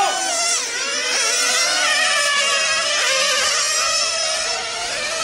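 Several 1/8-scale nitro on-road RC cars with small glow engines running at high revs. Their overlapping whines rise and fall in pitch as the cars accelerate and lift off through the corners.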